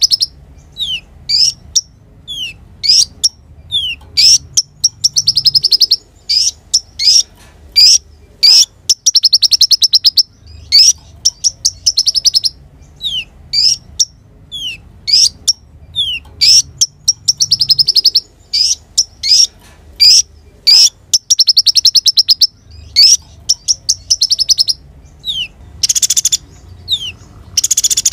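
Crimson sunbird (kolibri ninja) singing non-stop: short, sharp downslurred notes alternating with fast, high, buzzy trills, with a faint low hum underneath.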